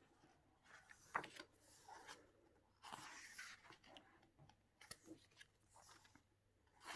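Faint rustling and light clicks of photo-book pages being handled and turned, with a few short paper sounds spread through an otherwise quiet stretch.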